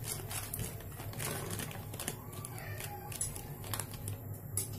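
Plastic jelly-powder packet crinkling in scattered short crackles as the green jelly powder is shaken out of it into a steel pot of water, over a low steady hum.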